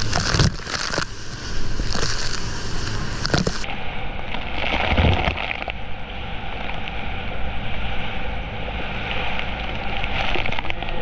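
Choppy sea sloshing and spray splashing against the side of a small boat, with wind rushing over the microphone and a boat motor running underneath. Several sharp splash hits come in the first few seconds.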